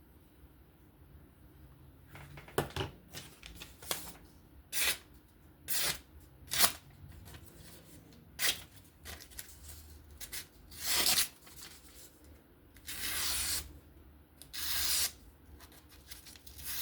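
A knife blade slicing paper in a series of short strokes, a few of them longer near the end, as a sharpness test. The edge is dull enough that it needs sharpening.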